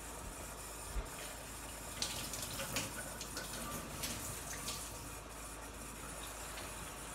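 Tap water running to fill the water bath of a yogurt maker. A single knock comes about a second in, and a run of clicks and clatter follows over the next few seconds.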